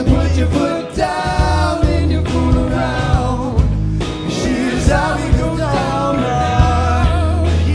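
Live band music with singing, over a steady drum beat and a heavy bass line.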